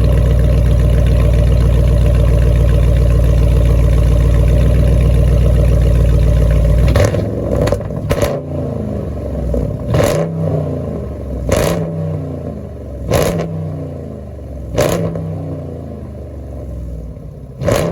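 Dodge Durango's 5.7 Hemi V8 idling steadily through an exhaust that is stock apart from a mid-muffler delete. About seven seconds in it is blipped repeatedly, about one rev every second and a half, the revs falling back after each blip.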